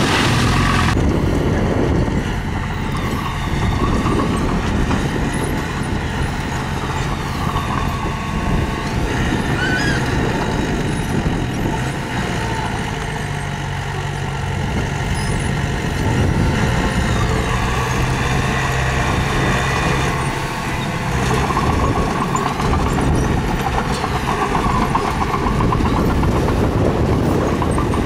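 Diesel engine of a mini bulldozer working under load, running continuously with its pitch rising and falling several times as it pushes stone.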